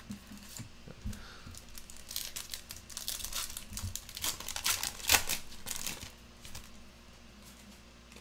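Foil wrapper of a Topps Finest trading card pack being torn open and crinkled by hand, crackling for about four seconds before settling quieter near the end.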